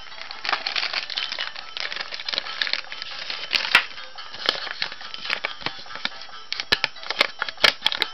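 Thin clear plastic toy bag crinkling and crackling as it is handled and torn open, with sharp snaps, densest in the last couple of seconds, over background music.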